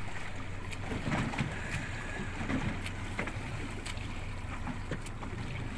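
Support boat's motor running steadily at low speed, a low hum under wind and water noise.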